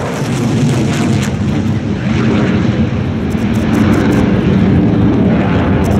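Jet engine noise from J-10 fighters flying a formation display: a steady low rushing sound that grows a little louder in the second half.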